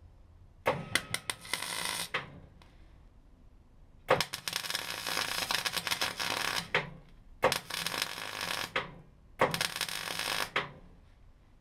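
MIG welding on car body steel: the arc crackling and sizzling in four short runs with brief pauses between, as a repair panel is welded into the outer B post.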